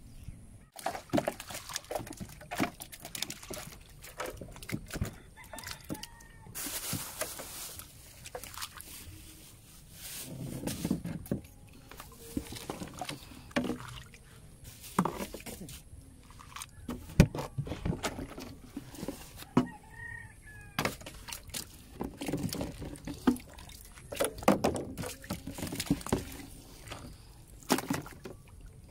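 Freshly caught tilapia flopping and slapping in shallow water in the bottom of a boat, with irregular knocks and splashes as they are handled into a plastic cooler.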